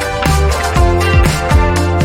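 Background music: an upbeat electronic dance track with a steady drum beat and bass, no vocals.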